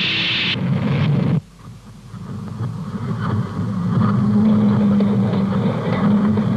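A hiss that breaks off abruptly, then the low rumble of a locomotive hauling wagons on the smelter railway, with a steady hum building up after a few seconds.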